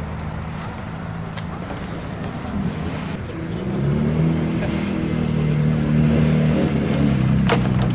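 A car engine running, its note rising and getting louder about three seconds in as the car pulls away. A sharp click comes near the end.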